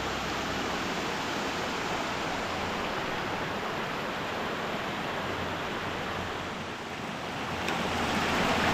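Mountain stream cascading over rocks, a steady rushing of water that grows louder near the end as it is heard from right beside the flow.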